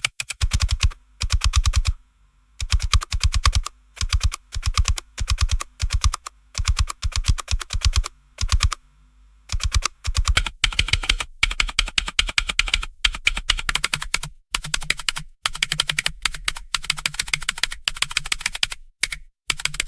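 Typing on a computer keyboard: runs of rapid key clicks broken by short pauses, with longer breaks about two seconds in and again around nine seconds.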